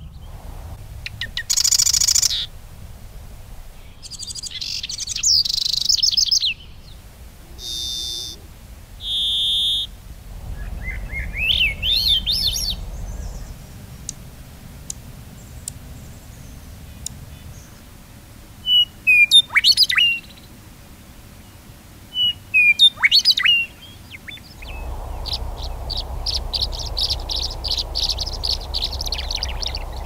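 A white-crowned sparrow sings several short phrases of whistles and buzzy trills. Then a dark-eyed junco gives a short rising series of notes and two clusters of sharp, sweeping call notes. Near the end a tree swallow gives a rapid, continuous twitter.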